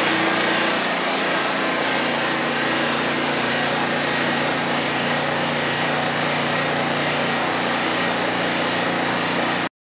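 Hi Sifter tumbler screener running steadily while screening graphite powder: an even motor hum with a broad mechanical rush, which cuts off suddenly near the end.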